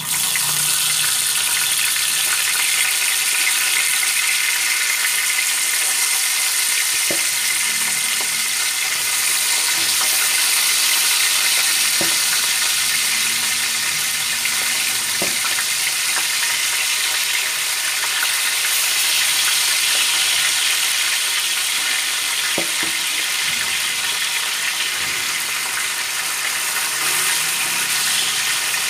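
Hot cooking oil sizzling loudly as whole round scad (galunggong) are laid into a frying pan, with a sudden start as the first fish goes in. There are a few light knocks of a spatula against the pan.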